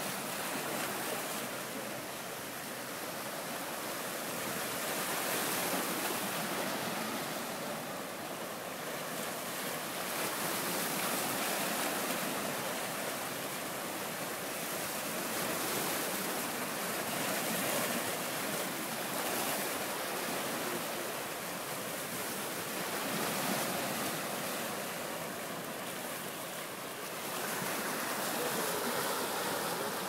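Sea surf washing and breaking over volcanic rocks along the shore: a steady rush of foaming water that swells and eases every five or six seconds.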